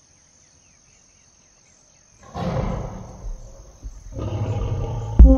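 Logo-intro sound design: faint chirping, then a sudden deep rumbling swell about two seconds in that fades away. A second swell builds and runs into the first hits of an electronic beat near the end.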